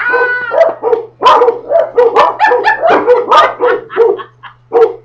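Dog barking and yipping in a fast run of short, high calls, about three or four a second, with brief pauses.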